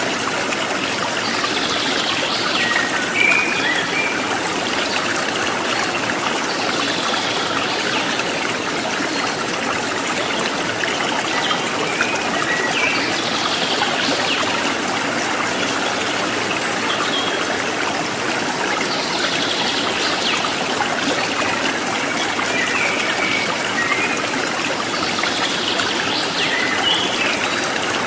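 Steady sound of running water, a stream-like trickle, with a brighter swell recurring about every six seconds.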